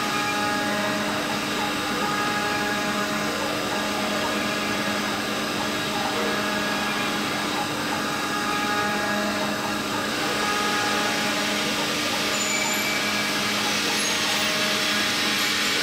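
Small 5-axis CNC milling machine running steadily, its spindle motor giving a constant whine with several held tones over a steady hiss.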